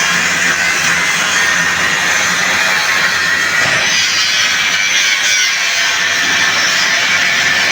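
Angle grinder grinding metal, a steady harsh hiss without a break.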